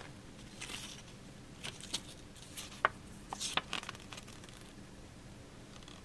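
Folded paper instruction leaflet being unfolded by hand: faint, scattered paper rustles and a few small ticks, stopping after about four seconds.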